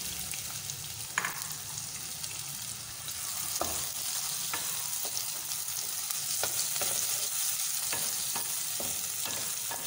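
Chopped onions sizzling in hot oil in a metal karahi, while a wooden spoon stirs them, with scattered light scrapes and knocks against the pan.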